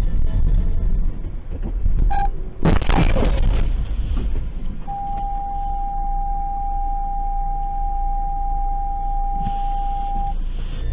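Collision between two cars on a snowy road, heard from inside the dashcam car: a low rumble, then a loud crash about three seconds in. After that a steady high beep holds for about five seconds.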